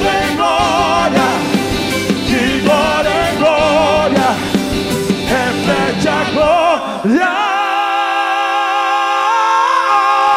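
Live gospel band playing with drums while a singer sings wavering vocal runs; about seven seconds in, the drums and bass drop out, leaving a long held sung note over sustained chords.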